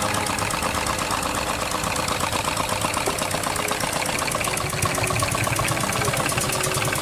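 Homemade model engine running steadily with a fast, even rattle as it drives a small belt-driven water pump.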